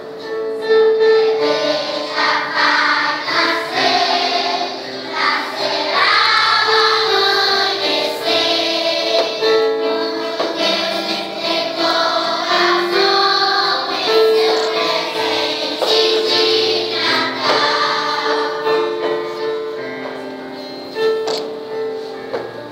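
Children's choir singing a song from a Christmas cantata.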